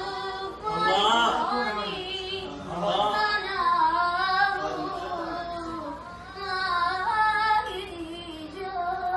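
Gulf Arabic folk music: a sliding, wavering melody line, sung without clear words and played with a rebab, the bowed spike fiddle.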